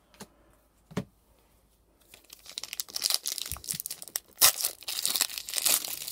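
A Pokémon booster pack's foil wrapper crinkling loudly as it is handled and torn open, starting about two seconds in. Two light taps come before it.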